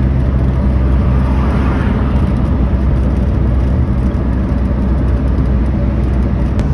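A turbocharged car's engine and road noise, heard from inside while it cruises at a steady speed.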